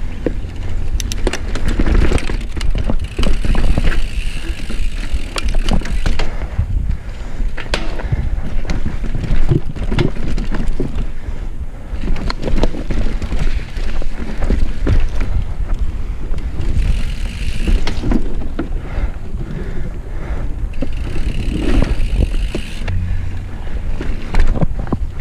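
Mountain bike ridden over rough dirt singletrack and wooden trail features: tyre rumble with a steady clatter of chain and frame rattling over the bumps, and a high buzz in a few stretches.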